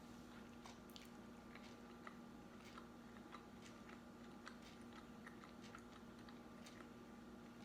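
A person chewing food close to the microphone: faint, irregular wet mouth clicks and smacks, over a steady low hum.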